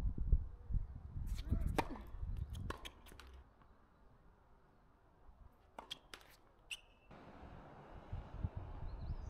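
Sharp taps and knocks of a tennis ball on racket strings and a hard court, in two short clusters, with a short squeak near the end. Wind rumbles on the microphone at the start and again late on.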